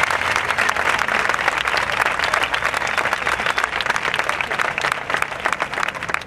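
A large crowd applauding, dense clapping that thins out toward the end.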